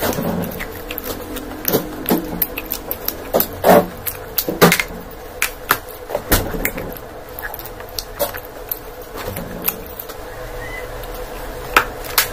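Close-miked eating: irregular sharp clicks and crackles of biting and chewing food, with a faint steady hum underneath.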